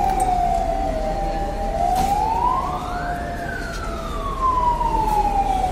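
Fire engine siren wailing, its pitch sliding slowly down, rising to a peak about three seconds in, then falling again. A second, steadier siren tone drifts slowly lower beneath it.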